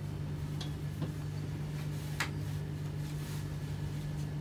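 A steady low hum with a few faint, sharp clicks scattered over it, the clearest about two seconds in.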